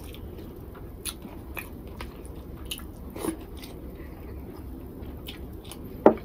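Close-miked eating sounds: chewing, with small wet clicks as fingers work rice and dried-fish bhorta on a plate. One sharper knock sounds near the end.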